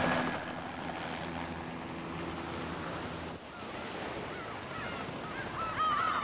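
Wind and surf noise, with a flock of birds starting to call near the end; helicopter rotor noise drops away in the first half-second.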